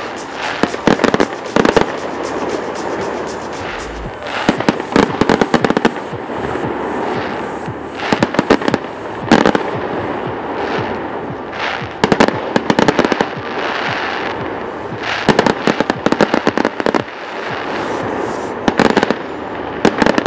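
Fireworks display: about six clusters of sharp bangs and crackling, one every three to four seconds, over a steady background din.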